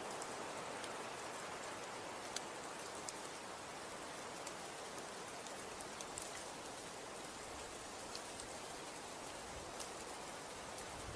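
Snow falling: a steady soft hiss with scattered light ticks of flakes landing.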